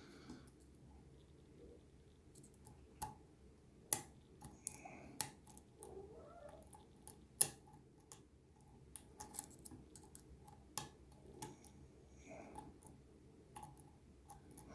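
Faint, irregular metallic clicks and light scraping as a lock pick and tension tool work the pins of an ABUS Extreme 83WP-53 six-pin padlock.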